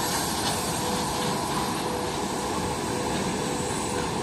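Freight train hauled by a coupled VL11M electric locomotive pair rolling past: a steady rumble of wagons on the rails with a steady hum running through it.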